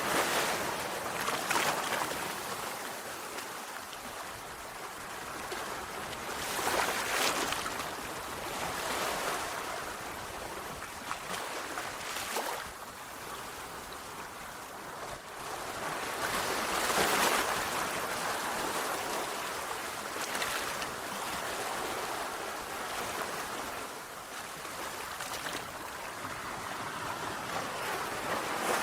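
Sea waves breaking and washing on a shore, a continuous hiss of surf that swells every few seconds as each wave comes in.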